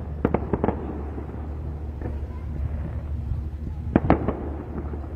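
Fireworks going off: a quick run of about four sharp bangs right at the start and another cluster of about three about four seconds in, over a steady low hum.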